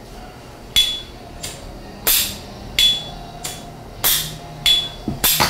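Sharp, evenly spaced knocks, about one and a half a second, eight in all, several followed by a brief high metallic ring.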